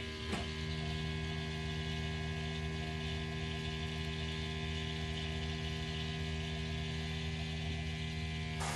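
A steady hum of stable tones over an even whirring hiss, unchanged throughout.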